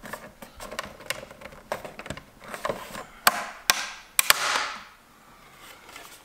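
Plastic clicks and snaps as a Honda Civic side-mirror cap is worked loose from its clips by hand. The loudest sharp snaps come in a cluster about three to four seconds in, followed by a brief scraping rub as the cap pulls free.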